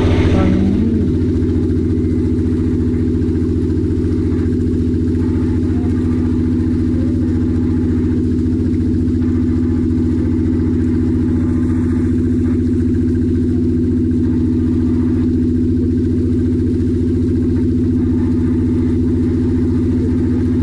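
Boat engine running steadily at constant speed, a deep even drone that does not change in pitch.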